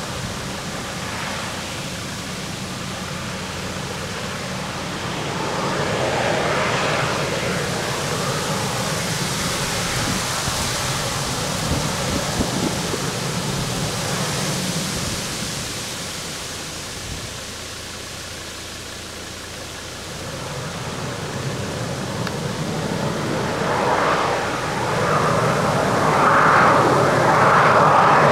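Jet airliner engine roar, swelling about a fifth of the way in, easing off past the middle, then building louder again near the end.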